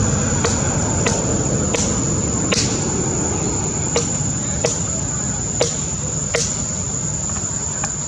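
Steady high-pitched insect drone over a low rumbling background, with about nine sharp, irregularly spaced clicks.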